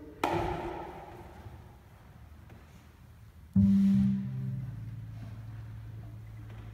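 A single hand drum hit, a bongo, rings and fades just after the start. About halfway, an upright double bass is plucked: a low note, then a lower one that is left ringing.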